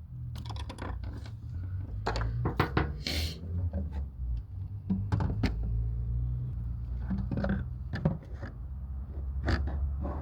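A series of sharp knocks and clunks at uneven intervals, the sound of hand tools and engine parts being handled during reassembly, over a steady low hum.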